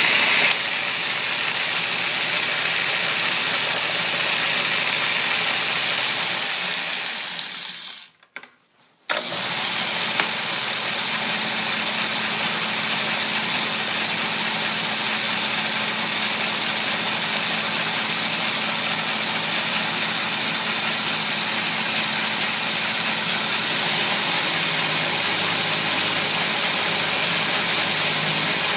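Atlas metal lathe running, milling a slot in strap iron with an end mill in its milling attachment: a steady machining noise. It fades out about six seconds in, drops to silence for about a second, then comes back abruptly and runs on steadily.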